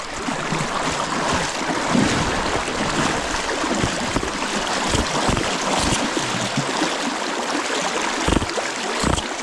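Fast Kenai River current rushing and splashing close to the microphone, with a few dull low thumps near the end.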